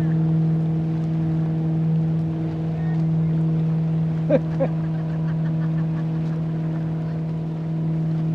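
A motorboat engine running at a steady pitch, a constant low drone. About four seconds in, two short rising squeaks cut briefly through it.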